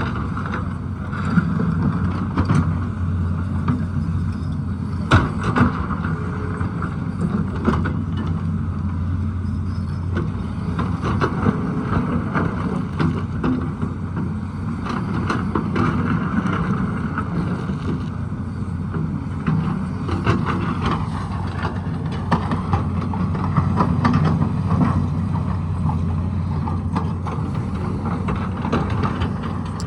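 Tata Hitachi excavator's diesel engine running steadily under working load, with scattered sharp knocks and clanks from the digging.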